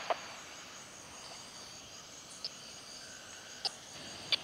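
Steady high-pitched insect chirring from mangrove, with a few short sharp ticks scattered through it.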